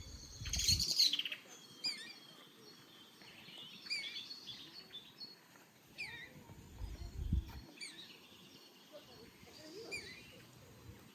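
Birds chirping: short, hooked calls repeat roughly every two seconds, with a louder burst of chirping about a second in. A low rumble comes and goes underneath.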